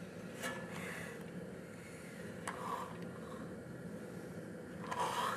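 Homemade Stirling engine fitted with fan blades, running: a steady low mechanical hum with a few light clicks.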